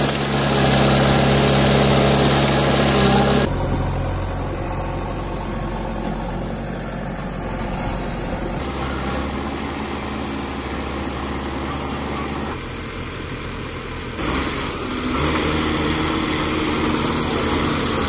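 Diesel engines of a JCB backhoe loader and a Sonalika tractor running steadily. The engine hum is loudest in the first few seconds, and the sound changes abruptly several times as one shot gives way to the next.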